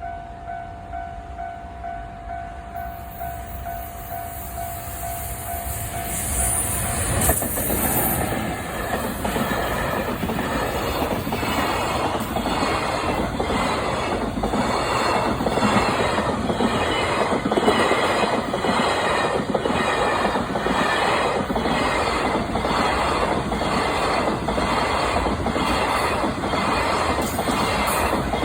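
A level-crossing warning bell rings in a steady repeated two-tone pattern. About seven seconds in, a freight train hauled by an EF210 electric locomotive arrives and passes close by, its wheels clattering rhythmically over the rail joints and drowning out the bell.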